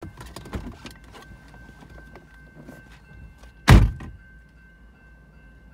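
A single loud thunk about three and a half seconds in, after a couple of seconds of small clicks and knocks. Under it a railroad crossing bell rings steadily and faintly.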